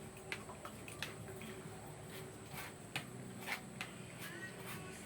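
Irregular light clicks and knocks of kitchen utensils and cookware being handled, a few a second, over a low steady background.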